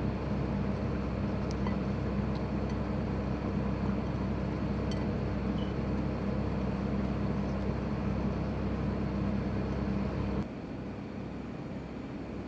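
Steady mechanical hum with a low drone and a few faint light clicks, which drops abruptly to quieter room tone about ten seconds in.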